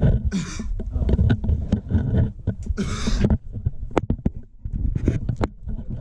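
Scraping, rustling and knocking as a person crawls down over rock and old mine timbers, with clothing and hands rubbing against the microphone, which gives a heavy rumble. Two short hissing rushes, one about half a second in and one about three seconds in.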